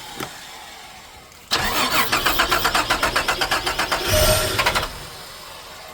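Holden VR Commodore's Buick V6 cranking on the starter motor, an even rhythmic chug for about three seconds that stops without the engine catching. The owners suspect a dead fuel pump.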